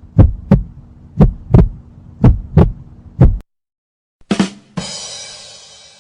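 Heartbeat sound effect: deep double thumps, lub-dub, about once a second, stopping about three and a half seconds in. Near the end comes a short hit and then a bright ringing crash that fades away.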